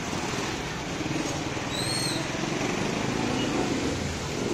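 Busy street traffic, with the engine of a motorcycle tricycle running close by. A brief high chirp comes about two seconds in.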